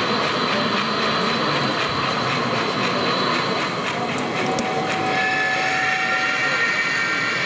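HO scale model train running: a geared steam locomotive hauling ore hopper cars, giving a steady rolling noise with hiss. A few steady high tones join in over the second half.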